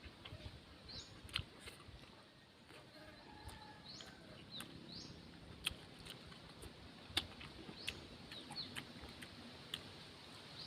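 Chickens faintly clucking and peeping in the background, with several brief high rising chirps, while sharp clicks and smacks of eating come through at intervals.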